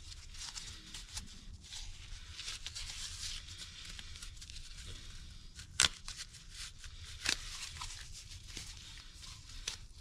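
Gloved hands working a rubber O-ring and seals onto a steel hydraulic-cylinder gland nut: faint rubbing and rustling of gloves, rubber and metal over a steady low hum, with sharp clicks of parts knocking about six seconds in, again a second and a half later, and once near the end.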